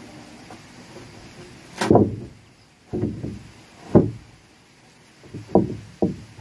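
A thick wooden floor plank set down onto the log joists and shifted into place, giving about five dull wooden thuds and knocks; the heaviest come about two and four seconds in, with two lighter knocks near the end.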